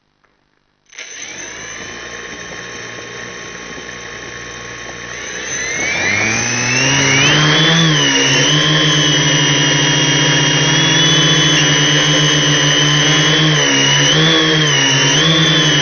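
Multirotor's electric motors and propellers starting up at low speed about a second in, then throttling up around six seconds in to a loud, steady whine whose pitch wavers up and down with throttle corrections.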